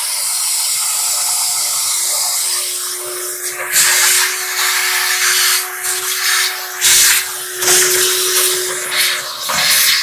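Wet/dry shop vacuum running with a steady motor whine and hiss as its hose sucks debris out of a clothes dryer cabinet. From about three and a half seconds in, the sound surges and drops again and again as the nozzle moves and picks up debris.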